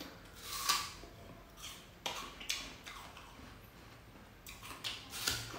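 A person chewing a crisp apple: a series of short, irregular crunches.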